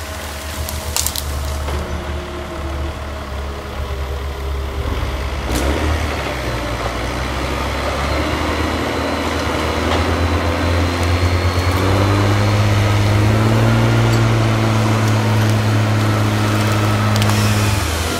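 Diesel engines of heavy forestry machines working, with a skidder hauling a long tree trunk. The engine note climbs from about eight seconds in, holds loud and steady under load from about twelve seconds, then drops near the end.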